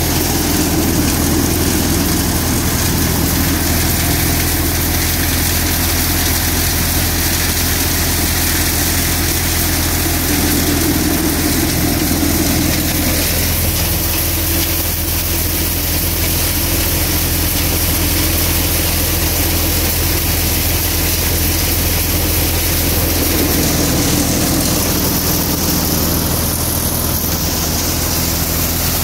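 Balwan thresher running steadily under load while threshing pigeon peas (tur). A constant low engine drone runs under the clatter and rush of the machine.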